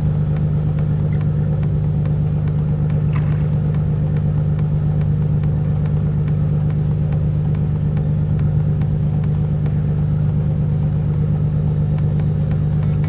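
An engine running steadily with a low, even hum that does not change in pitch or level.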